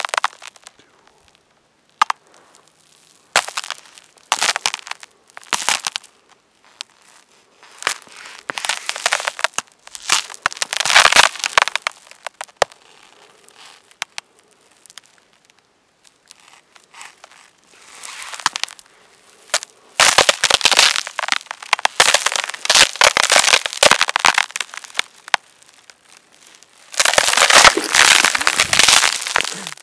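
Shoes crunching and crackling over a frosted, icy surface, in irregular bursts with quiet gaps between, the longest and loudest stretches about two-thirds of the way through and again near the end.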